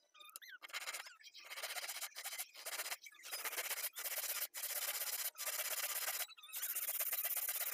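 Hand saw cutting through a small wooden block: a run of rasping back-and-forth strokes, each about half a second to a second long with brief pauses between, the last stroke the longest.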